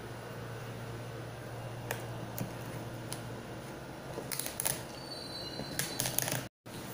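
Cardboard box and packaging of an inkjet printer being handled and opened: scattered sharp clicks and short crinkling rustles, busier in the second half, over a steady low hum. The sound cuts out completely for a moment near the end.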